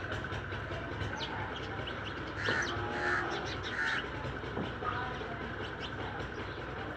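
Outdoor bird calls: three short harsh calls in the middle, with scattered faint high chirps, over a steady low hum.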